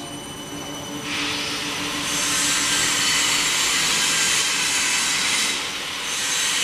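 BOPP film folding machine running with a steady hum, joined about a second in by a loud rushing hiss of air from its air-feed system. The hiss dips briefly near the end, then comes back.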